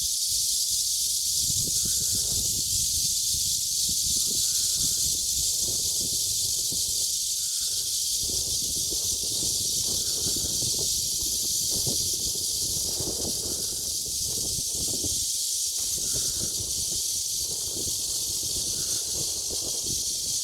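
Chorus of cicadas buzzing loudly and without a break, a dense, steady high hiss, with an uneven low rumble underneath.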